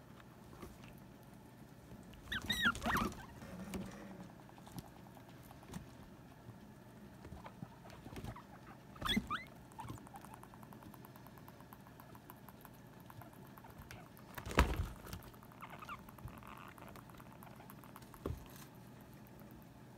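Guinea pigs squeaking in a squabble: a burst of short, pitch-bending squeaks a couple of seconds in and another around nine seconds in. Soft rustling of movement runs between them, with a sharp thump around the middle and a smaller one near the end.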